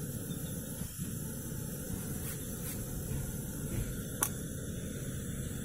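Small gas canister camping stove burning with a steady hiss and low roar. A metal pot clinks once against the stove about four seconds in.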